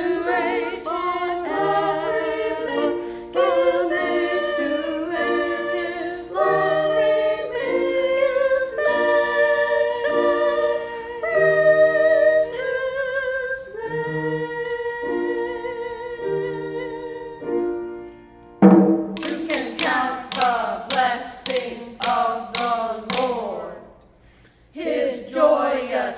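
A choir singing a praise canon a cappella, several voices holding notes in overlapping parts. A little after two-thirds of the way through, the singing breaks off briefly and comes back louder and fuller.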